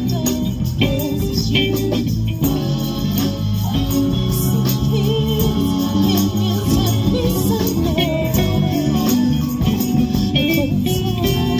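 Live band playing a song with singing, a bass line and a shaken tambourine jingling along.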